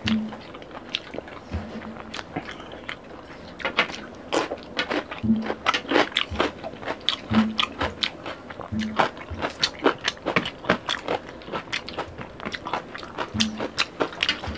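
Close-up eating sounds: fingers working rice and fish curry and mouths chewing, a run of short wet clicks and smacks that becomes much busier about four seconds in.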